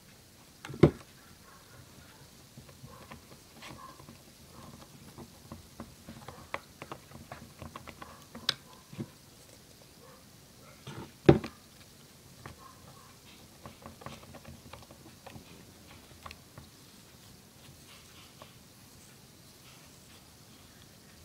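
Small taps and clicks of a squeeze bottle and a plastic cup being handled on a tabletop, with two louder knocks, about a second in and about eleven seconds in. Later, lighter ticking as a wooden stick stirs the mixture in the cup.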